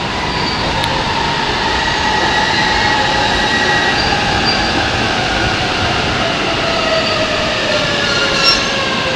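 JR East E531 series electric commuter train running alongside the platform, its traction motors whining in several tones that slowly fall in pitch as it slows, with wheel and rail noise underneath. A short click near the end.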